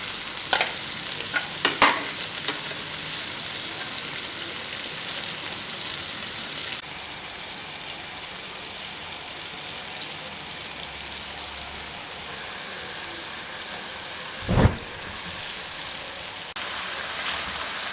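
Chicken, tomatoes and green chillies sizzling steadily in a gravy on an iron tawa. A spatula knocks against the pan a few times in the first couple of seconds, and there is one louder thump about fifteen seconds in.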